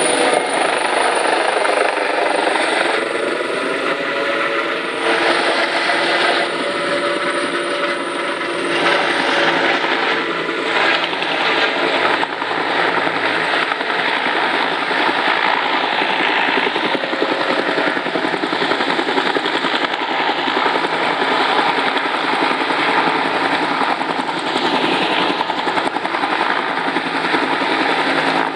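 Military helicopters running at takeoff. First an OH-1 observation helicopter passes overhead, then an AH-1S Cobra attack helicopter lifts off and hovers low, its two-bladed main rotor and turbine engine running with a steady whine throughout.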